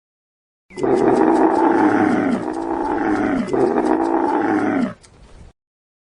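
A large animal's roar, played as a sound effect. It is rough and drawn out, falling in pitch in three swoops. It starts abruptly about a second in and cuts off about five seconds in.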